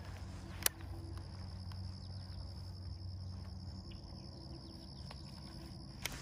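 Crickets trilling steadily at a high pitch over low background noise, with a sharp click about a second in and another near the end.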